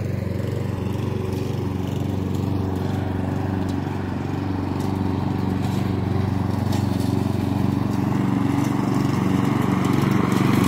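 Lawn mower engine running steadily under load while cutting grass, getting louder over the last few seconds as it comes closer.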